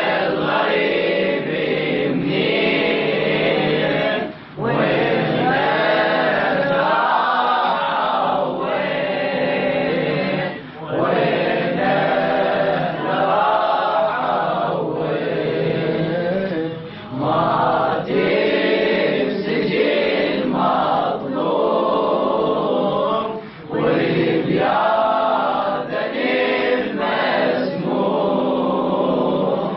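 Melodic chanted recitation in maqam Bayat: long, ornamented vocal phrases, each broken off by a short breath pause roughly every six seconds.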